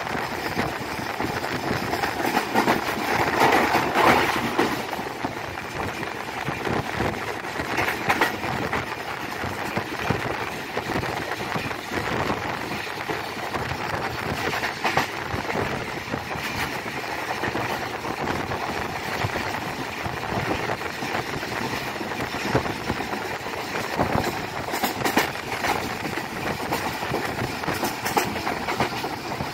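Passenger train running on the track: a steady noise of wheels on rail with frequent clicks, a little louder about three to four seconds in.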